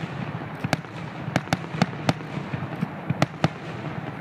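Fireworks display: aerial shells bursting in irregular sharp bangs, about ten in four seconds, some in quick pairs, over a steady background rumble.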